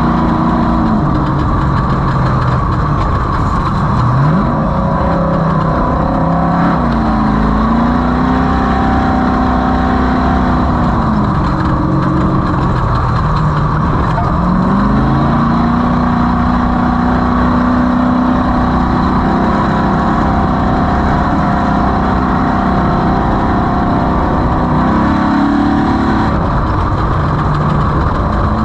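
Off-road race vehicle's engine running hard, its pitch rising and falling several times as the throttle is opened and eased: a sharp climb about four seconds in, held high, a drop near twelve seconds, another climb at about fourteen seconds that slowly sags, and a rise again near the end. A constant noisy rumble runs beneath it.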